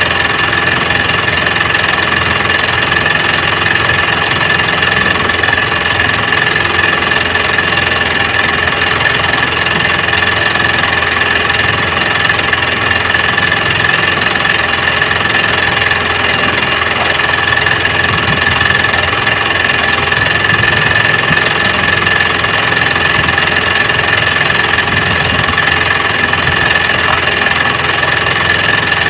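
Small engine aboard an outrigger fishing boat running steadily at an even speed, with a constant high-pitched whine.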